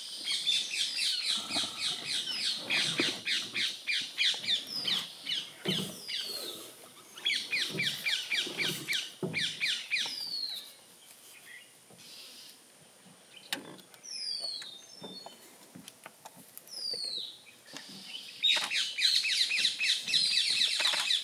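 Birds calling: bouts of fast, repeated downward-sliding chirps, several a second, broken by a quieter stretch with a few single descending whistles.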